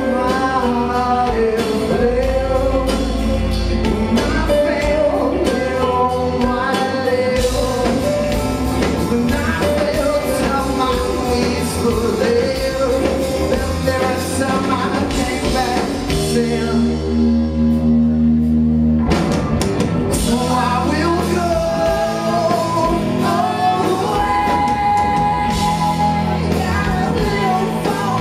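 Live rock band playing a song with a singer over electric guitars, bass and drums. Partway through, the drums and cymbals drop out for a couple of seconds while a low chord is held, then the full band comes back in.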